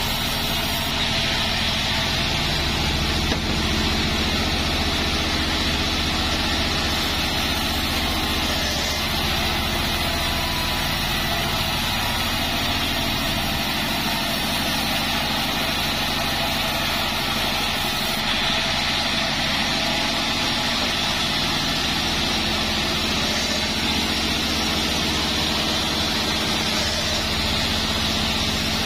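Band sawmill running steadily, its blade cutting lengthwise through a joar (Siamese cassia) log.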